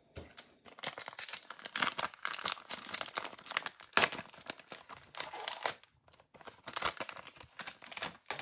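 Foil wrapper of a Panini Absolute football card value pack crinkling and tearing as it is ripped open by hand, in a rapid series of sharp rustles.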